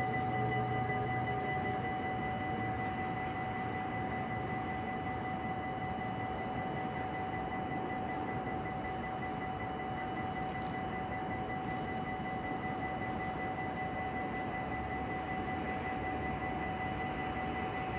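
Dutch level-crossing warning bell ringing as one steady, unbroken tone while the barriers lower, over a steady rushing noise. A low hum under it fades out in the first second or two.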